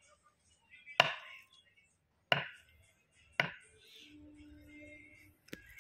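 A kitchen knife chops raw meat on a wooden board: three heavy strikes about a second apart, then a lighter knock near the end.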